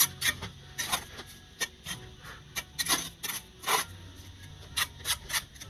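Steel brick trowel scraping and clacking against bricks and wet mortar as a brick is buttered and laid: a quick, irregular series of short scrapes and taps.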